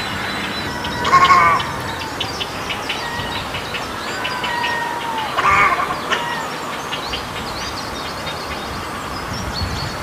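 Egrets giving harsh, croaking calls: two loud ones, about a second in and just past halfway. Beneath them runs a steady background of many faint, short chirps and ticks.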